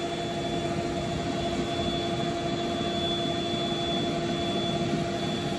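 Electric blower running steadily as it inflates a vinyl bounce house: a constant rush of air with a steady motor hum.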